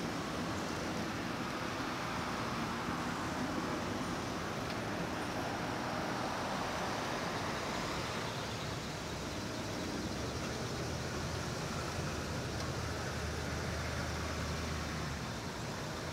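Freight train boxcars rolling past a grade crossing, a steady rumble of wheels on rail, with a low hum growing stronger near the end.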